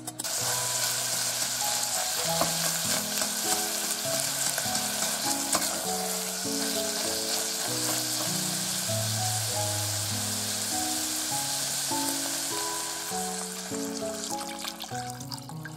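Ground pork with grated garlic and ginger sizzling in oil in a stainless saucepan while it is stirred with a spatula. The sizzle fades away near the end as water is poured into the pan.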